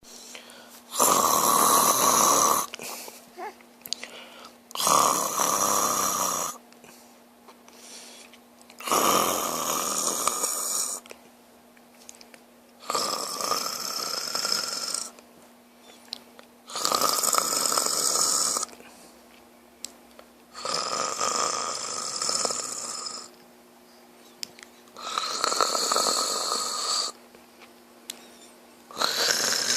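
A sleeping man snoring loudly, one long snore about every four seconds in an even rhythm, with quiet gaps between.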